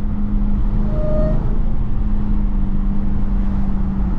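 Dodge Charger Hellcat's supercharged 6.2-litre V8 running at a steady cruise through a Corsa Extreme exhaust: a constant low drone holding one pitch, with road and tyre noise from the wet road underneath.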